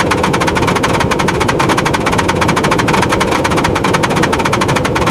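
Motorized toy train engine running with a fast, even mechanical rattle of about ten clicks a second.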